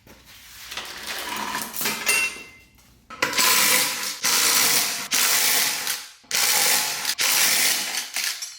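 A hand socket ratchet clicking in quick runs, about five spells of a second or so with short breaks between them, as nuts are backed off to take off the worn chain and sprockets.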